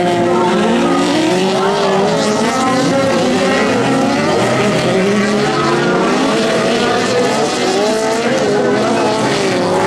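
Several autocross cars racing on a dirt track, their engines revving. The pitches of the different engines overlap, rising and falling as the cars accelerate and lift.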